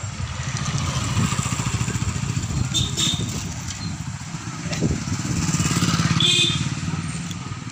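Motorcycle engine running at low speed close by, its exhaust beat steady and rapid. A brief high-pitched sound cuts in about six seconds in.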